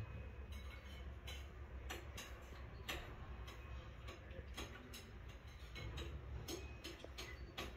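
Irregular sharp clicks, roughly one or two a second, over a low steady hum.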